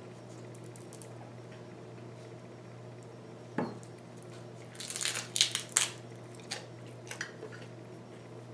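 Crisp food being bitten and chewed close to the microphone: one crunch about three and a half seconds in, then a quick run of crunching chews around the five-to-six-second mark, tapering to a few softer ones. A steady low hum runs underneath.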